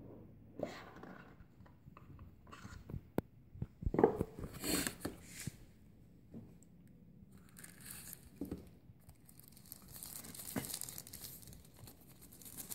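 Smart band packaging being opened by hand: a cardboard box slid and handled, with a sharp knock about four seconds in, then the paper wrapping inside rustled and crinkled, more densely near the end.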